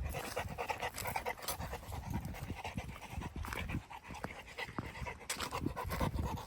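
Dog panting in quick, repeated breaths.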